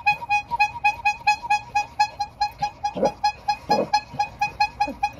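Bicycle horn honked rapidly over and over, about five short, nasal toots a second in a steady rhythm.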